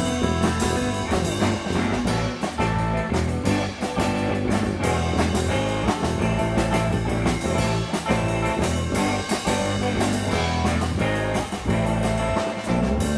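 A live rock band playing: electric bass, electric guitar and drum kit, with steady, closely spaced drum and cymbal hits over the bass and guitar.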